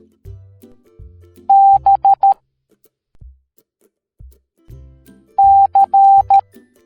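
Morse code beeps in a single steady tone over soft background music: dash-dot-dot-dot, the letter B, about a second and a half in, then dash-dot-dash-dot, the letter C, about five and a half seconds in.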